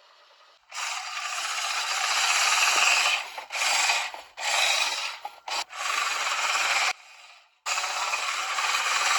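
Manual push reel lawn mower being pushed in strokes, its spinning reel blades giving a rasping whir that comes in five bursts of one to two and a half seconds with short breaks between them.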